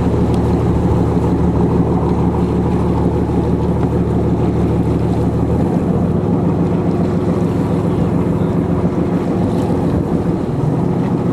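Fishing boat's engine running steadily under way, with wind buffeting the microphone and water noise. The deepest part of the engine note drops away about halfway through, and some of it returns near the end.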